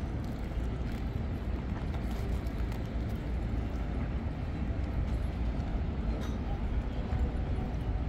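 Wind buffeting the phone's microphone, a steady low rumble, over faint outdoor city traffic.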